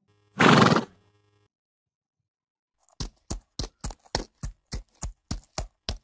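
One short, loud horse call about half a second in. About three seconds in, horse hooves start clip-clopping at an even pace, about three strikes a second.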